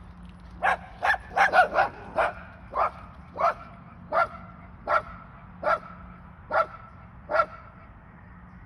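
A dog barking about a dozen times: a quick run of barks at first, then single barks every second or so.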